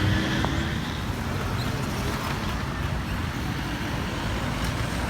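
Street traffic: vehicle engines running and passing, a steady wash of road noise, with a low engine hum fading out in the first second.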